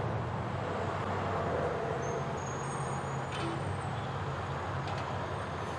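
Front-loader garbage truck's diesel engine running steadily as the truck pulls up to a dumpster, with a thin high squeal from about two to four seconds in.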